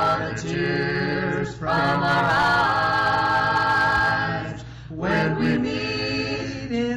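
A group of voices singing a slow gospel song in harmony, holding long notes, with a brief break about four and a half seconds in.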